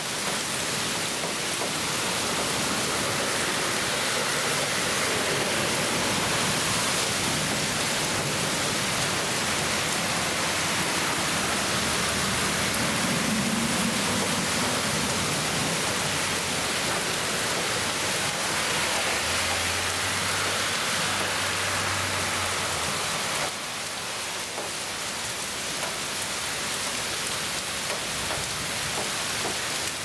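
Very heavy rain pouring down in a steady hiss, with water running off the pavement. About halfway through, cars drive through the flooded street and add a low rumble and splashing.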